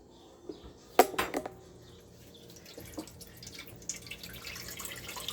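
A few sharp knocks as the baking pan is handled, then the chicken's cooking juices being poured off from the pan, a growing splashing trickle from about four seconds in.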